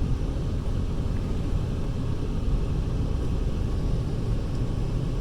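Steady low rumble of a car's cabin on the move: road and engine noise heard from inside the vehicle.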